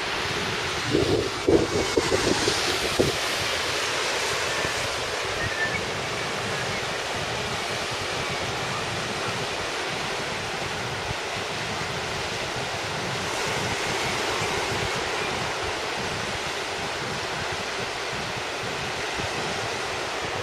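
Surf washing steadily on the beach, mixed with wind buffeting the microphone. A few brief louder bumps in the first few seconds.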